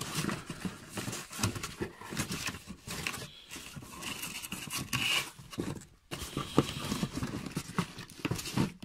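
Cardboard boxes being handled and shifted inside a shipping carton: scraping and rustling with irregular knocks.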